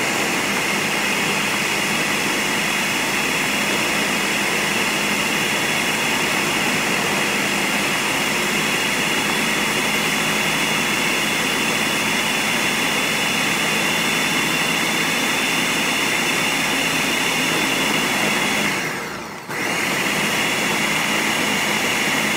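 Countertop blender with a 72-ounce pitcher running steadily at high speed, chopping a thick load of bell peppers, red onion and garlic into a green seasoning paste. About 19 seconds in, the motor briefly drops and then spins back up.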